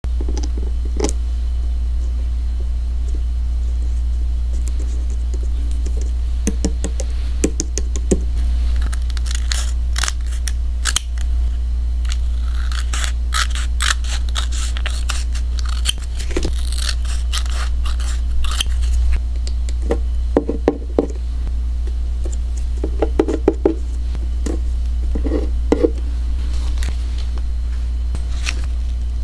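Paper and plastic being handled at a craft table: crisp rustling and crinkling of paper cut-outs and a plastic-packed holographic sticker sheet, with scattered taps and clicks. The densest rustling comes in the middle. A steady low hum runs underneath.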